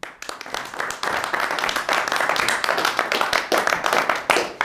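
Audience applauding, many hands clapping together; the applause starts suddenly and dies away near the end.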